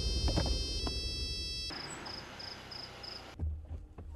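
A phone ringing with a high electronic ringtone over a car's low engine rumble, cutting off abruptly; then a run of five quick high beeps, and a dull thump near the end.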